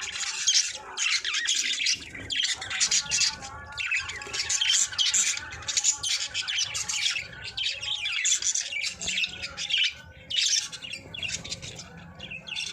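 Budgerigars chattering and chirping almost without a break, a fast, busy warble that eases briefly about ten seconds in. It is the chatter of a pair that the keeper presents as a sign of breeding readiness.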